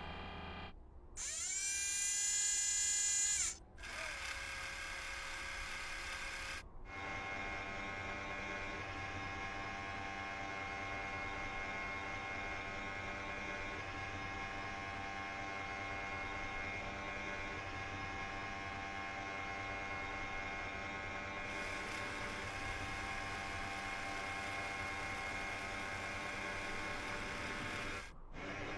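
Small electric motor whirring: a whine that rises in pitch, holds and cuts off, then a long steady mechanical hum made of several tones, like the motors of a robotic rover arm.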